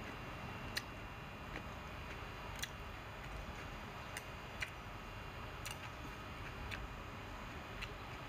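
Chopsticks clicking against a bowl while stirring and picking up noodles: about seven sharp, irregularly spaced clicks over a steady background hiss.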